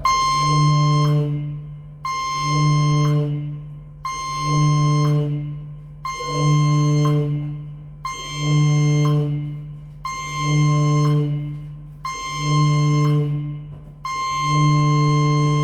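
Ship's general alarm sounding its signal: seven short blasts of a low, steady tone, each about a second and a half, then one long blast starting near the end. Seven short blasts followed by one long is the general emergency alarm signal.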